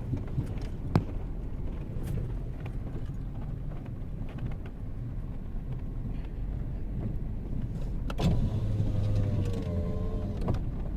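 A vehicle driving slowly with a steady low rumble, a few light knocks early on, and a wavering whine for about two seconds near the end.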